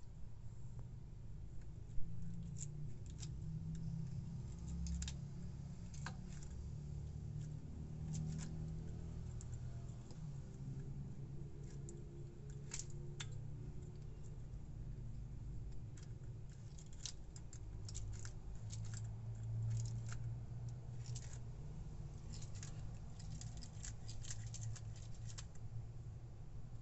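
Wooden push-button puppet toy being worked by hand: as the base is pressed and released, the jointed wooden limbs and beads click and clatter together. Scattered light clicks, thicker toward the end, with one louder knock about two seconds in, over a low handling rumble.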